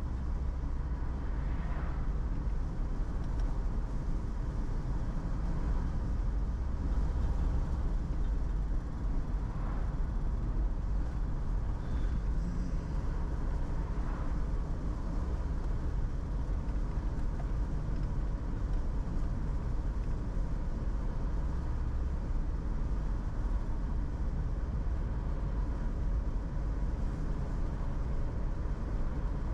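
Steady road and engine noise heard inside a moving car's cabin, mostly a low rumble.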